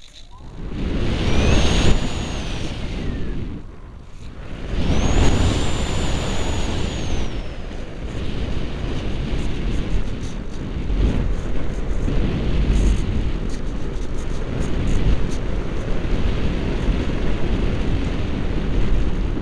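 Rushing air over an RC ASW 28 model sailplane, heard from its onboard camera as it flies loops and rolls. The noise swells and fades as the speed builds and drops, twice with a thin whistle that rises and then falls. From about halfway on there are scattered light clicks or rattles.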